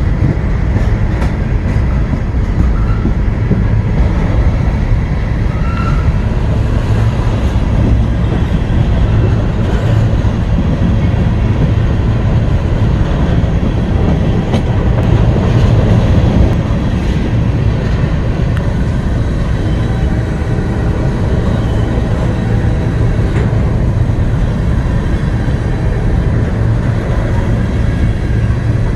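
Covered hopper cars of a freight train rolling past close by: a loud, steady rumble of steel wheels on rail.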